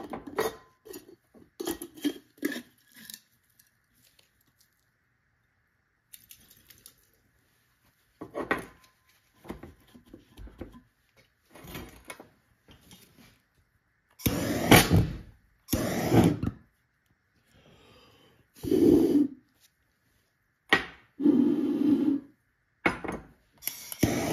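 A glass jam jar and its metal screw lid being handled and shaken on a workbench: a series of clinks and knocks, then, after a pause, several short rattling bursts about a second long each.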